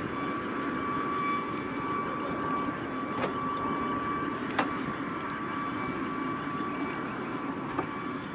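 Steady whine of helicopter turbine engines running over a constant rush of noise, with a few sharp metal clinks of sling chains.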